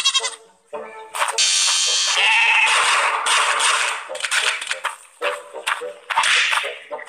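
Cartoon sound effects over orchestral music: a sheep bleats at the start. About a second in comes a loud, dense burst of noise lasting about three seconds, then scattered short hits.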